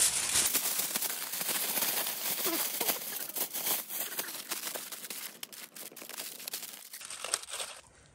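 Aluminium foil crinkling and crumpling as it is folded by hand around a piece of chicken: a dense run of small crackles that thins out near the end.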